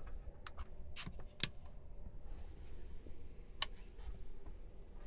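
A few light, sharp clicks and taps, about five over several seconds, against a quiet low background.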